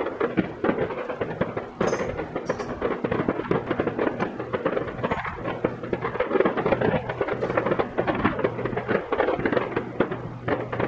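Aerial fireworks display with many shells bursting at once: a dense, continuous crackle of rapid pops and bangs with no pause.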